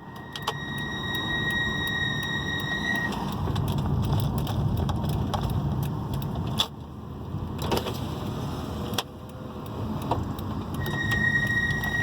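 Front Brembo brake pads in Brembo Gold four-piston calipers squealing: a steady high-pitched tone lasting about three seconds, then again near the end, over road and tyre noise inside the car's cabin. The pads and discs have only about 10,000 km on them, and the owner suspects poor-quality or fake pads.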